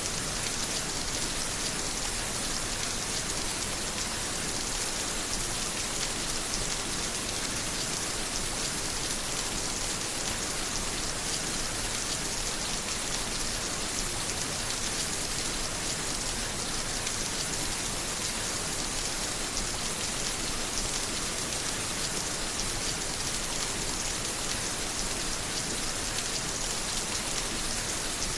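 Steady heavy rain pattering on a surface, an even hiss with dense raindrop ticks that doesn't change.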